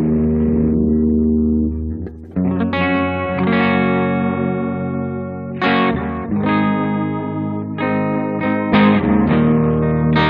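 Electric guitar played through a Haggtronix Seer fuzz/delay pedal. Held chords ring out, with new chords struck about two, five and a half, six and a half and nine seconds in.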